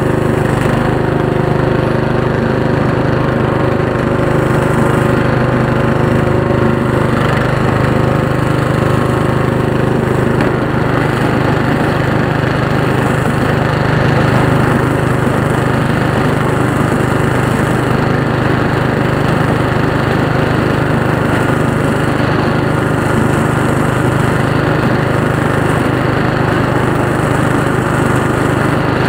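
Riding lawn tractor's engine running steadily under load while its front blade pushes snow.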